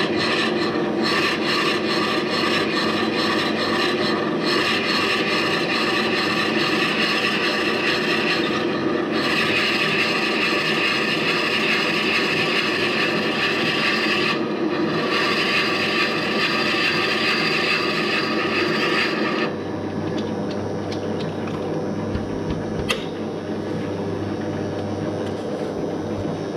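A metal-working lathe spins a wooden workpiece while something rubs and scrapes steadily against the wood, with brief let-ups every few seconds. About two-thirds through, the high scraping hiss falls away and leaves a steadier, lower running hum from the lathe.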